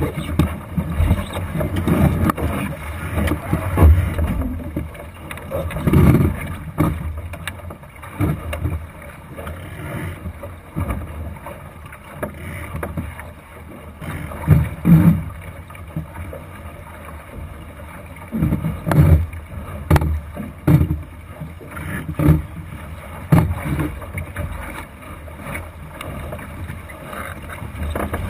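Wind and water noise aboard a Thistle sailing dinghy under way: irregular low surges as water rushes and slaps along the hull and wind buffets the microphone, with a few sharp knocks.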